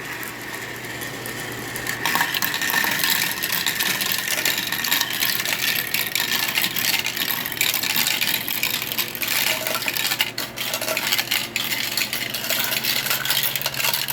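Several marbles rolling and clattering down a plastic wall-mounted marble run track, a continuous rattle full of small clicks that gets louder about two seconds in.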